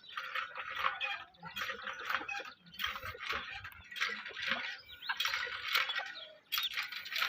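Birds chirping and calling over and over, many short calls overlapping.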